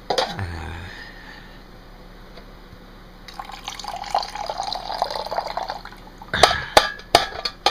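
Liquid trickling and splashing for a few seconds, starting about three seconds in, followed by several sharp knocks near the end.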